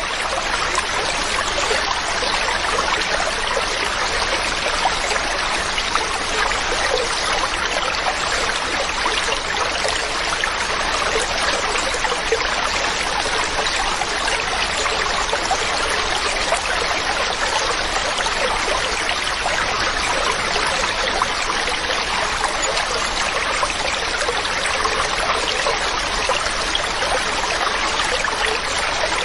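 Mountain stream running steadily over rocks, a continuous splashing rush with a fine trickling texture.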